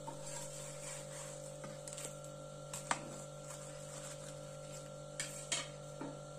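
Steady electrical hum in a small kitchen, with a few faint clicks and knocks from a spatula and plate as the dosa is moved off the pan, the sharpest about three seconds in.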